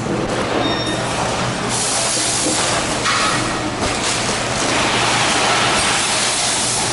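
SanTung PF liquid filling and sealing machine running: a steady machine hum with a hiss that swells several times.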